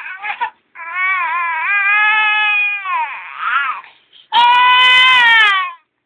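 Recorded baby-crying sound effect played through a mobile phone's small speaker: two long cries, the second starting about four seconds in.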